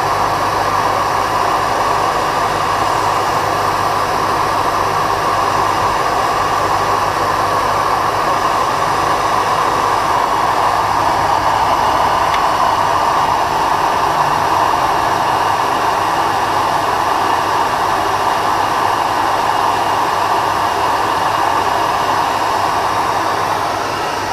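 Ryobi 370 W bench grinder running with a steady low hum while a diamond dresser is drawn across its aluminium oxide wheel, giving a continuous grinding hiss as the wheel surface is renewed.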